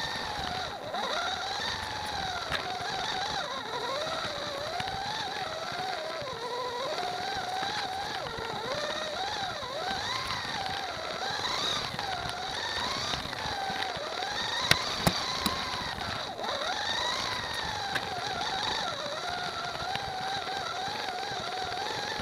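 The small electric motor of a Vauxhall Astra Coupe slot car whining, its pitch rising and falling again and again as the car speeds up and slows through the bends, picked up by a camera riding on the car. A few sharp clicks come about two-thirds of the way in.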